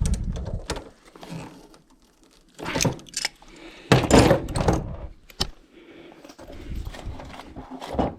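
Metal clinking, clattering and knocks from tightening a 1/2-inch EMT compression fitting with a hand tool. The handling comes in irregular spells, loudest about four seconds in.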